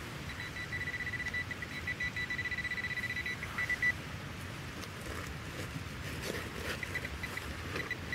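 Garrett Pro-Pointer pinpointer sounding a steady high tone for several seconds that breaks into quick pulses, then a few short beeps near the end, as it is worked through the soil: the alert that it is right over a metal target, here a buried copper penny.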